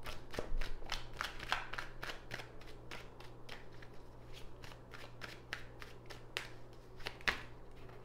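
A deck of tarot cards being shuffled by hand: a rapid run of soft clicks and flicks as the cards slide against each other.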